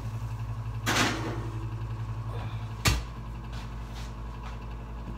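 A cast iron skillet goes into the oven: a short scrape about a second in, then the oven door shuts with a single knock near three seconds. A steady low hum runs underneath and drops once the door is shut.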